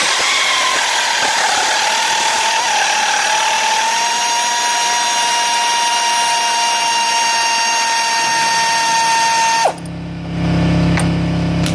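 Power drill spinning out the long 10 mm bolts that join the A/C condenser to the radiator: a loud, steady, high whine that stops abruptly near the end. A lower steady hum follows it.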